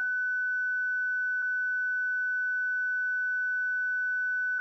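A single steady, high electronic tone held without a break at an even level, like a flatline sound effect.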